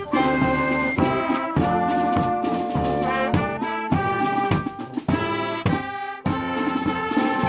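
A wind band of saxophones, clarinets, trumpets and snare drums playing a tune live, with held notes and quick note changes and a brief break in the sound about six seconds in.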